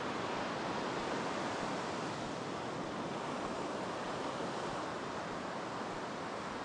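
Ocean surf breaking and washing up on a sandy beach, a steady even rush.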